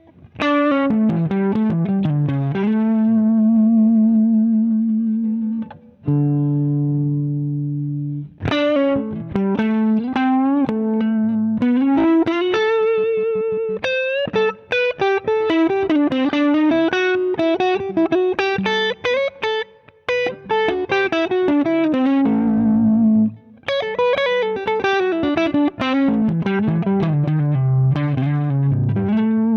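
Electric guitar played through a Zander Circuitry Surplus overdrive pedal, with an overdriven tone. It opens with held, ringing chords for the first several seconds, then moves into single-note lead lines with wavering, bent notes, broken by a few short pauses.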